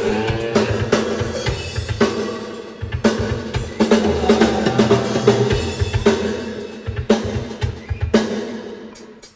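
Rock drum kit being played at a soundcheck: many kick and snare hits with ringing drums, dying away near the end.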